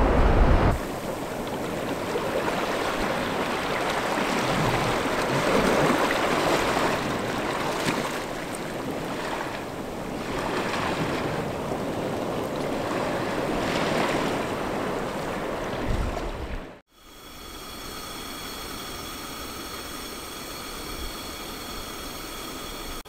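Small waves washing in over sand and granite rocks, swelling and easing every couple of seconds, with a gust of wind on the microphone at the start. After a sudden cut near the end comes a quieter steady hiss with faint high steady tones, from a portable gas camp stove burning under a steaming pot.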